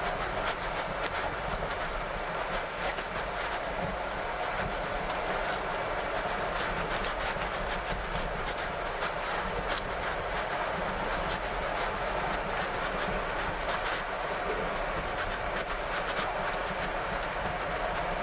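Steady road and tyre noise inside a moving 2016 Honda Vezel RS, with many irregular light clicks and taps over it.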